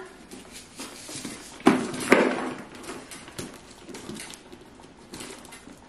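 Silver metal chain strap of a handbag being pulled out and handled: a few light clinks and knocks, the loudest about two seconds in, with soft rustling and small ticks between.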